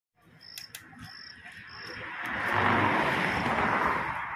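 Noise of a passing vehicle, swelling over a couple of seconds and fading toward the end, with short high insect chirps repeating in the background.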